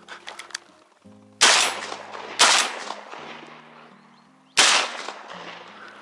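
Three shotgun shots: two about a second apart, then a third about two seconds later, each dying away quickly. Background music plays underneath.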